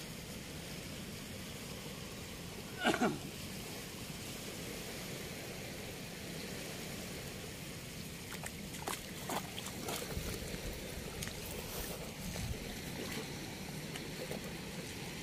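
Steady rush of river water flowing through a weir, with one brief louder sound about three seconds in and a few short clicks a little past the middle.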